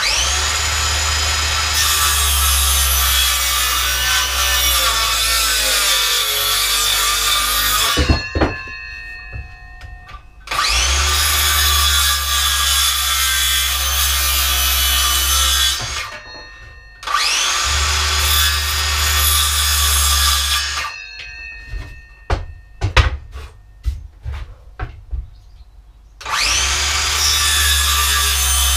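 Handheld circular saw cutting into a wooden board in four runs, each starting with a rising whine as the blade spins up and winding down between cuts. Clicks and knocks come in the gaps as the saw and board are handled.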